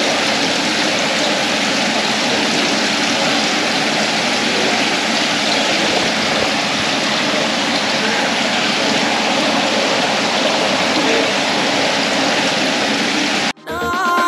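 Water pouring steadily into an aquarium tank, its surface splashing and churning; the sound cuts off abruptly near the end.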